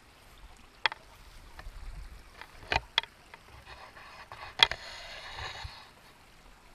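Footsteps and rustling through dry grass and scrub, with several sharp clicks, the loudest about two-thirds of the way in.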